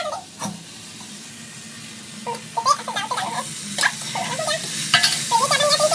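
Fried soya chunks slid off a steel plate into a hot iron kadhai and stirred with a ladle, the pan sizzling, louder from about two seconds in, after a knock at the start.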